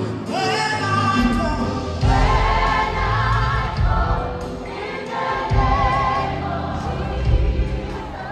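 Gospel choir singing live with a band, a lead voice with vibrato over the choir and a bass-heavy accompaniment.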